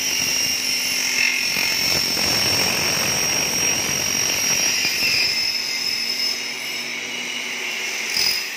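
A double-head aluminium cutting saw built on Hitachi 380 saw heads, running with a steady high whine. It sounds rougher and noisier for a few seconds in the middle, and there is a short knock near the end.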